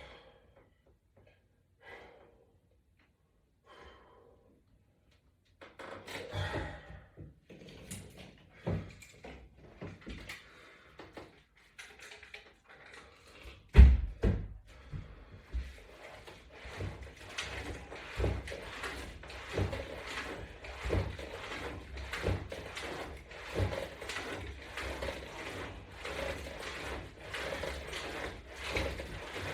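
Irregular knocks and thumps from exercise equipment and movement on a mat, with one heavy thump about 14 seconds in and a denser run of thuds and rattles after it.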